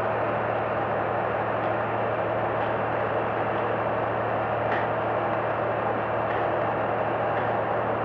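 Concrete pump's engine running steadily with a constant low hum while it pumps concrete.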